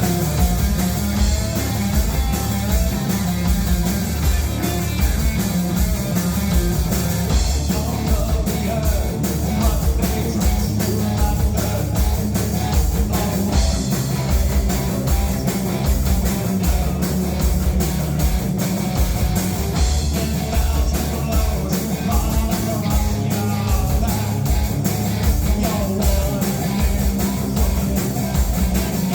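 Live rock band playing a fast, loud song: steadily pounding drum kit, guitars and bass.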